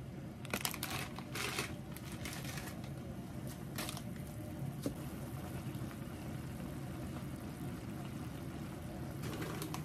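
Plastic instant-ramen packet crinkling and being torn open in short crackly bursts, mostly in the first two seconds, again near four seconds and near the end, over a steady low hum.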